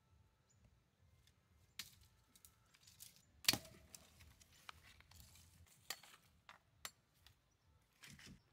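A few separate sharp clicks and knocks over a low rumble, the loudest about three and a half seconds in.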